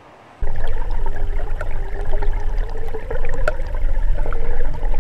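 Water rushing and gurgling close to the microphone over a heavy low rumble, with scattered small clicks. It starts suddenly about half a second in.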